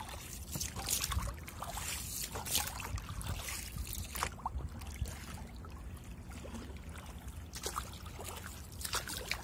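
Oars of an inflatable rubber boat dipping and pulling through the water in repeated, irregular strokes, with splashing and water trickling off the blades.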